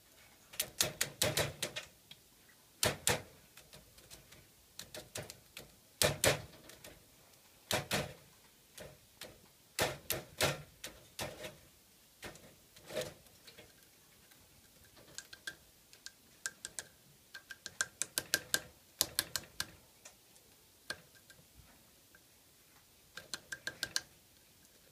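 Great spotted woodpecker pecking at a Siberian pine cone: sharp taps in irregular bursts of quick strokes, with short pauses between bursts.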